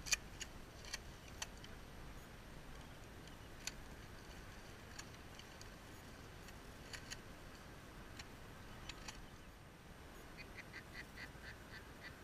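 Scattered light clicks and knocks, the sharpest right at the start, then near the end a rapid run of duck quacks, about four a second.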